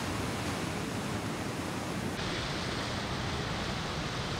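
Steady rush of sea surf on a rocky shore, with no single wave standing out. About two seconds in, the sound turns duller as its highest part drops away.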